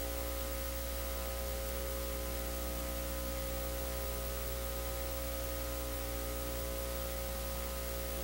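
Steady hiss with an electrical hum made of several fixed tones. It is the noise floor of an old recording transfer, with no programme sound.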